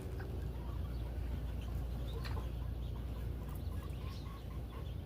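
Small chickens clucking softly, with short scattered calls over a steady low rumble.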